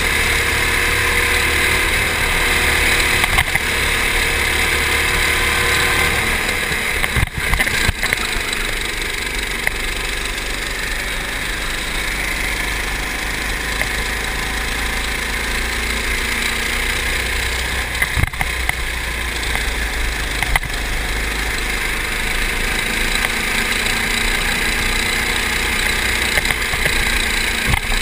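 Go-kart engine running at speed, its pitch shifting through the first few seconds, with wind rush on the onboard microphone. A few sharp knocks from the kart's chassis break through at intervals.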